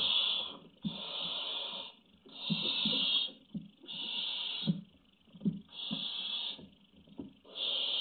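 Barn owl chicks giving their rasping, snore-like hissing calls, about five of them, each roughly a second long and spaced by short gaps, the food-begging call of nestlings. Soft thumps of the chicks shuffling on the nest-box floor sound between the hisses.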